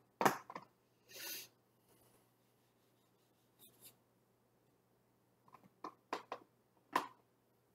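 Small dry-erase whiteboard being wiped clean by hand: a short soft rub, then a few light clicks and taps near the end.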